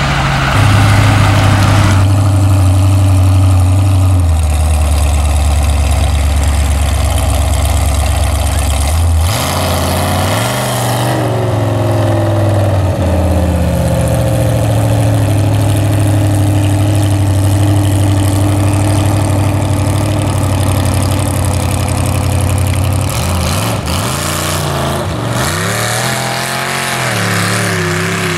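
Big engines of lifted 4x4 mud trucks running: a steady idle at first, then revving up and down about a third of the way in and again near the end.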